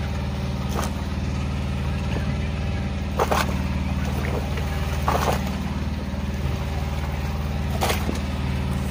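A small engine running at a steady idle, with four brief splashes from the mass of small fish thrashing at the surface in the net.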